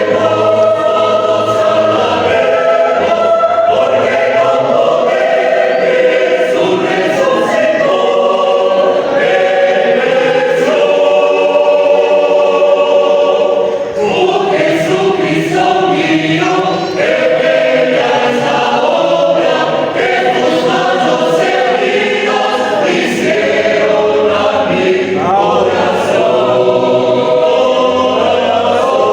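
A choir singing, many voices holding notes together and moving from chord to chord.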